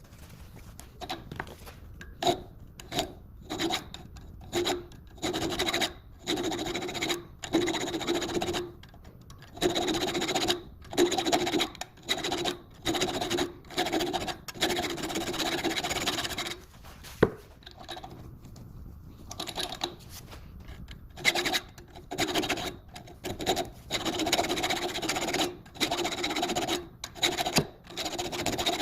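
Hacksaw blade rasping back and forth across a screw's threads in repeated short strokes, chasing a damaged thread. The strokes come in runs, with a pause and a single click about two-thirds of the way through.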